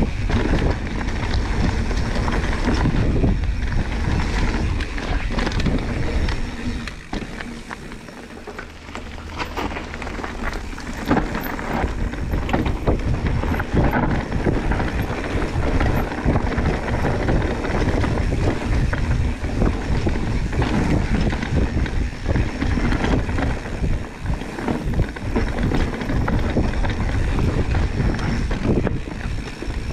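ProPain Tyee mountain bike ridden down a dirt trail: tyres rumbling over the ground, frame and parts rattling with frequent knocks, and wind noise on the action-camera microphone. It goes quieter for a few seconds about a quarter of the way in.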